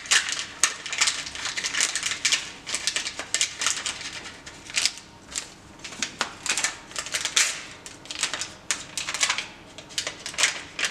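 Small paper baking-powder sachets rustling and crinkling as they are handled, torn open and emptied into a pot, in many short irregular bursts.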